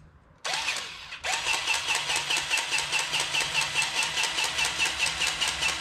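Lincoln cordless electric grease gun pumping grease into a fitting, its motor and piston running in a steady rhythm of about four or five strokes a second. It starts about half a second in, stops briefly, then runs on at high speed, the only speed it still works at.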